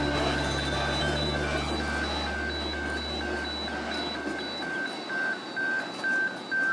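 Electronic beeper sounding short, evenly spaced beeps about twice a second, getting louder toward the end, over a low hum that fades out about two-thirds of the way through.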